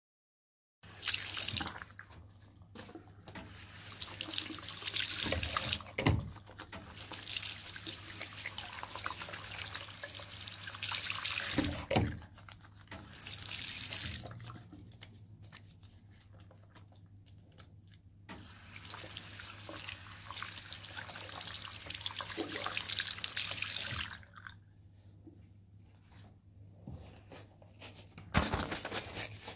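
Water from a tap running into a sink basin while hands are washed with soap. The water starts and stops several times, with a couple of knocks against the basin.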